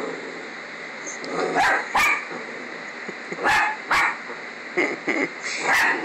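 Small long-haired dachshund barking in short sharp barks, mostly in pairs, about seven in all starting a second and a half in, at a stuffed toy dog.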